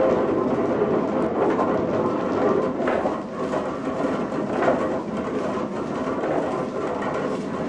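Snuff mill machinery running: cogged gearing on a vertical shaft and a pestle-and-mortar mill grinding snuff, a steady rumbling clatter with a few sharper knocks.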